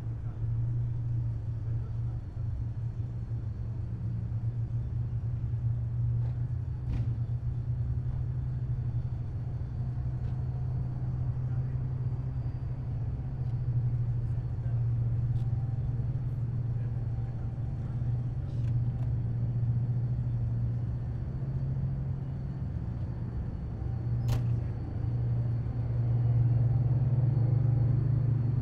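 Heavy military vehicles' engines running in a steady low drone as the column drives along the road, with a faint high whine above it and a few short sharp clicks, the clearest about three-quarters of the way through.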